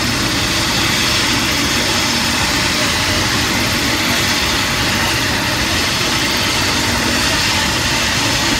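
Helicopter's engine and rotor running steadily while it sits on the ground: a loud, even, unbroken noise.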